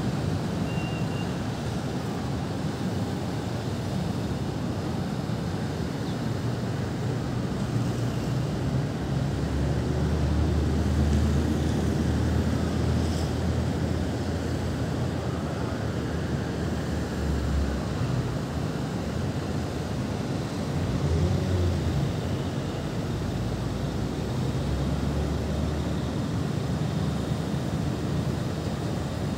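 Steady low rumble of city traffic heard from high above the streets.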